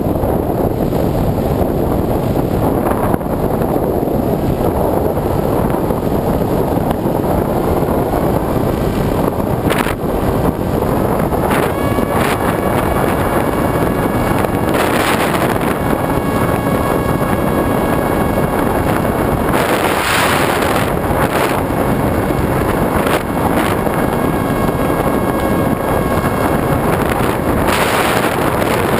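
Wind rushing over a camera mounted on a flying model aircraft as it takes off and climbs, over the steady drone of its motor. Partway through, a set of thin high whining tones joins in and holds. A few brief louder gusts of rush come as the plane banks.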